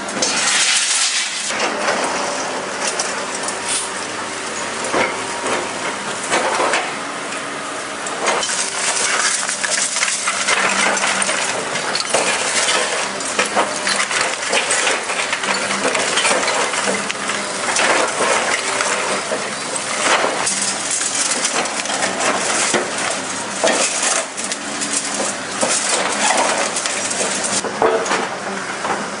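Scrap car metal being broken up by heavy machinery: a dense, continuous clatter of clanking and clinking metal pieces.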